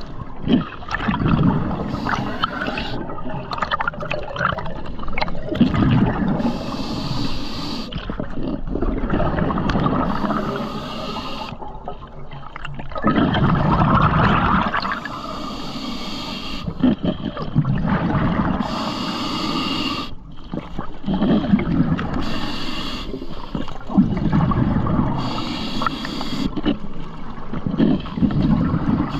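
Scuba diver breathing through a regulator underwater: a short hiss on each inhale alternating with bubbling, gurgling exhales, one breath about every three seconds.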